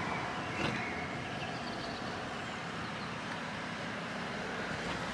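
Steady background noise of road traffic, with a faint click about half a second in.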